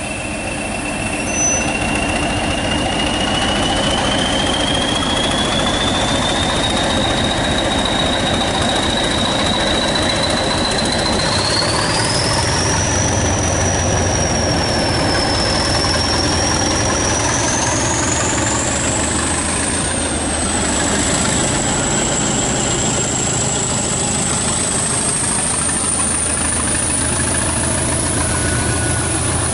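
British Rail Class 20 diesel locomotive pulling away under power, its English Electric eight-cylinder engine running hard with a steady low rumble. A turbocharger whistle rises slowly in pitch as the locomotive gathers speed and passes close by.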